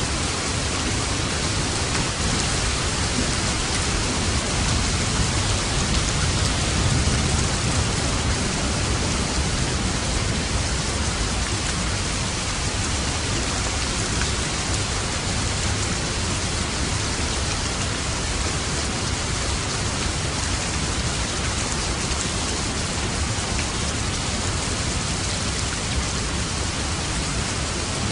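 Steady rain falling, an even hiss with no breaks and no thunderclap.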